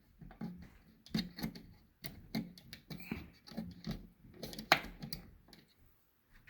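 Irregular small plastic clicks and scrapes of AA batteries being pressed into a Maple Chase thermostat's battery holder, with one sharper click late on.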